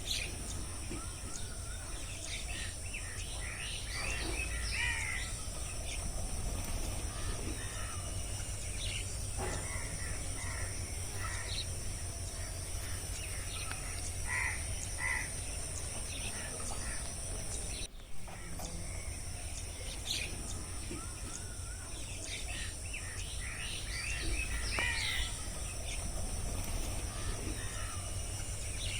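Forest ambience: assorted birds chirping and calling in short phrases over a steady high insect drone and a low wind rumble. The same stretch of calls repeats from about 18 seconds in.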